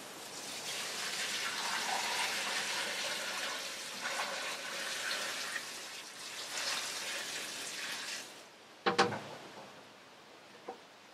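Rainwater poured from a plastic bucket into a tall metal stockpot: a steady splashing stream that tails off after about eight seconds. A couple of sharp knocks follow about nine seconds in.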